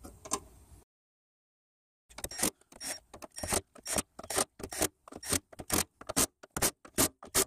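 Cordless drill/driver running in a quick series of short, separate bursts as it drives in small 8-millimetre screws.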